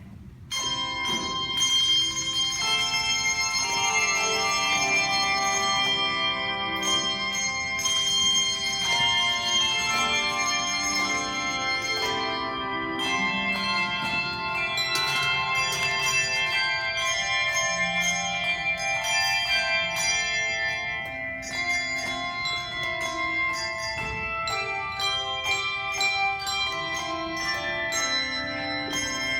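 Handbell choir playing a piece: many hand bells rung in turn and together, their notes ringing on and overlapping. The playing begins about half a second in.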